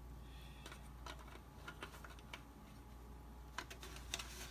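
Faint, irregular light clicks and taps of small plastic model-kit parts being handled on a work table, over a low steady hum.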